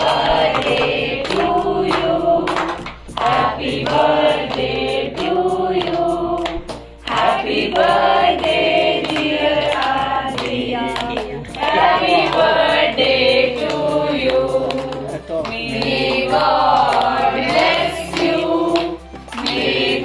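Several people singing together in chorus.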